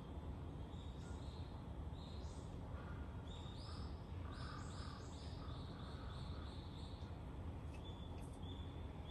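A bird calling: a run of short, high chirps repeated several times a second, mostly in the middle stretch, over a steady low background rumble.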